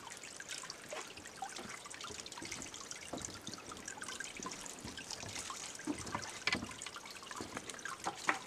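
Steady trickling, water-like background noise, dotted with small clicks and rustles as bare pear branches are handled; a few sharper clicks come near the end.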